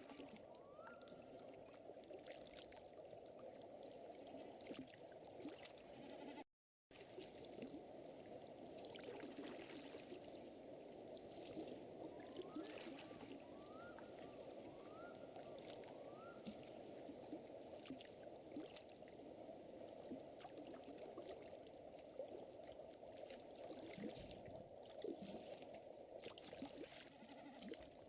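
Faint lakeside night ambience: a steady water-like wash with scattered light crackles, as of a small fire. A few short rising calls come in a quick series of four around the middle. The sound cuts out completely for a moment about six and a half seconds in.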